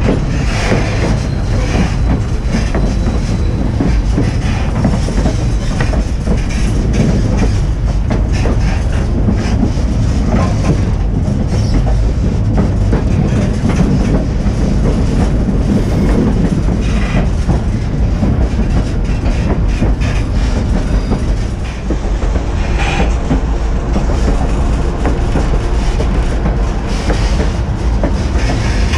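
White Pass & Yukon Route narrow-gauge passenger train running, heard from the open end platform of a coach: a steady rumble of wheels on rail with repeated clicking over the rail joints.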